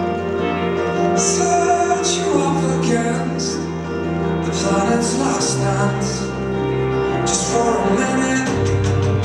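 Performance music with sustained chords over a low bass note that changes about halfway through and again near the end, with bright shimmering swells at intervals.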